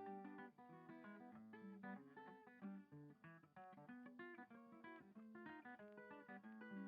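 Quiet background music: an acoustic guitar picking a melody of many short plucked notes.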